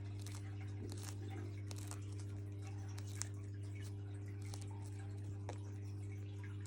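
Gang-gang cockatoo's beak crunching bok choy: scattered, irregular small crisp clicks. A steady low hum runs underneath.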